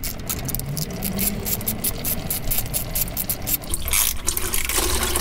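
Socket ratchet clicking quickly as transmission oil-pan bolts are loosened. About four seconds in, automatic transmission fluid begins pouring off the lowered pan edge into a plastic pail with a steady splashing rush.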